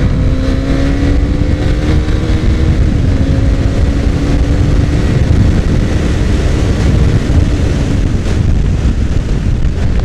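KTM Duke 390's single-cylinder engine pulling hard at high road speed, its pitch rising slowly over the first three seconds. After that it sinks under heavy wind rush buffeting the microphone.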